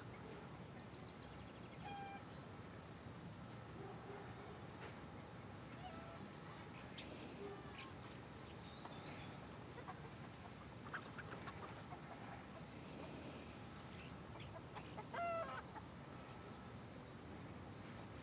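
Faint rural background: small birds chirping and trilling high, over a low steady hum. A louder call from a chicken comes about fifteen seconds in.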